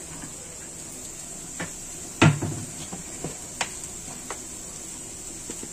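A few scattered knocks and clicks of kitchen things being handled, with one louder thump about two seconds in, over a faint steady hiss.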